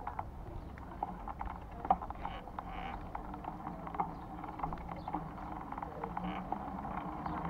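Footsteps tapping on stone paving, irregular and light, over a steady low hum of motor traffic.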